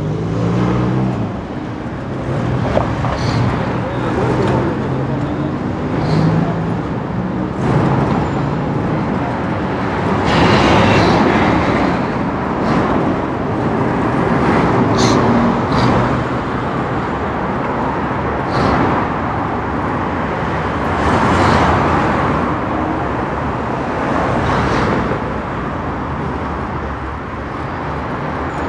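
City street traffic: cars and buses passing steadily, with a passing engine's hum near the start and voices mixed into the noise.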